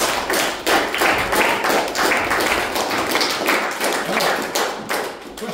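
Small audience applauding with a dense run of hand claps that fades out near the end.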